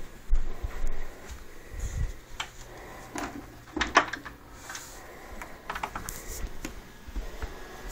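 Footsteps and camera-handling noise from someone walking through rooms with a handheld camera: scattered dull thumps and a few sharp clicks and knocks, the sharpest about four seconds in, over a faint steady low hum.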